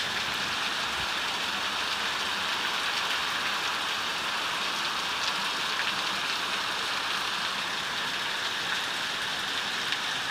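Heavy tropical downpour: a steady, dense hiss of rain pouring down without let-up.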